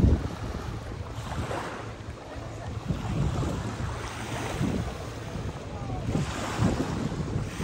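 Sea waves washing ashore in repeated swells, with wind gusting on the microphone in low rumbles.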